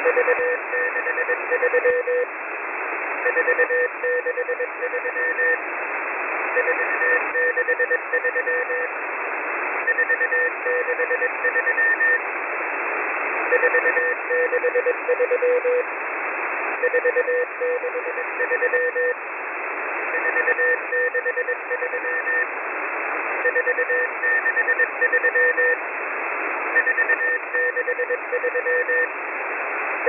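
Shortwave number station M01 sending Morse code numbers, received in upper sideband on a WebSDR. A low and a high beeping tone are keyed together in groups of about two seconds, a new group roughly every three seconds, over steady shortwave receiver hiss.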